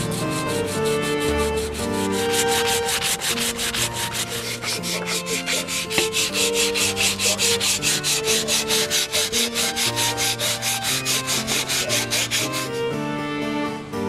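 Sandpaper rubbed by hand over a carved wooden spoon in quick, even strokes, about four or five a second, stopping about a second before the end. Background instrumental music plays throughout.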